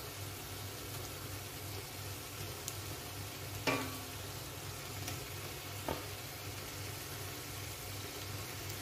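Faint steady hiss with a low hum, and two light knocks against a large cooking pot, the first with a brief ring, as sliced tomatoes are added to the biryani layers.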